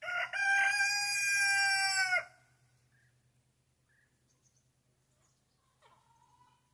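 A rooster crowing once, a single loud crow of about two seconds held on one pitch that dips slightly as it ends.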